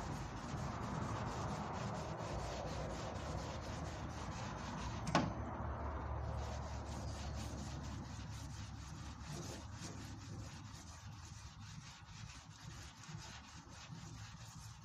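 Hand wet-sanding of filler primer on a car's steel front wing: abrasive paper rubbing steadily over the panel, softer in the second half. A single sharp click about five seconds in.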